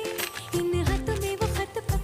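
Background music with a steady beat and a melody line, in a South Asian pop style.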